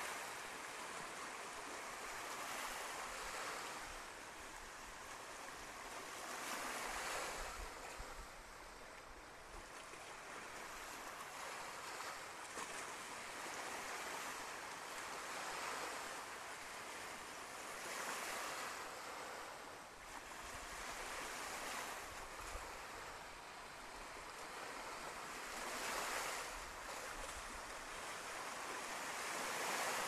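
Waves washing onto a sandy beach, the surf swelling and fading about every four seconds.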